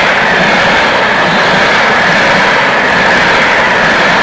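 Passenger coaches of an express train passing at speed close by: a loud, steady rolling noise of steel wheels on rails, with a bright hissing band in the upper middle.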